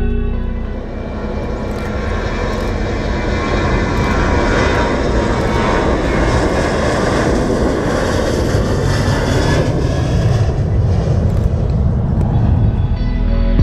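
Aircraft engines running loud: a dense rushing noise with a faint steady whine, growing louder over the first few seconds and holding.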